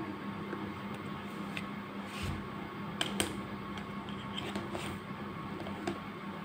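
Wooden jigsaw puzzle boards and pieces being handled and set down, giving a few light clicks and taps over a steady low hum.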